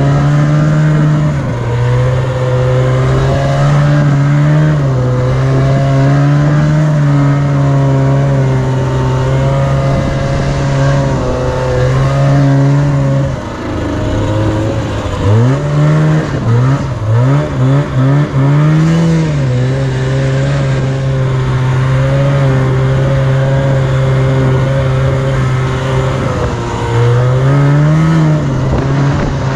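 Yamaha Enticer snowmobile's two-stroke engine held at high, steady revs. About halfway through the revs dip briefly, then the throttle is blipped four or five times in quick succession before the engine settles back to a steady high drone, with one more short rise near the end.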